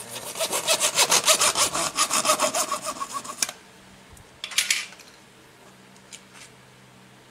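Hand saw cutting a piece to length with quick, even back-and-forth strokes that stop after about three and a half seconds. A brief scrape follows about a second later.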